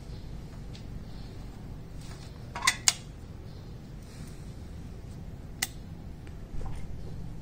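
Sharp clicks of small hard objects being handled during fiber splicing work: two quick clicks close together, then a single click a few seconds later, over a steady low hum.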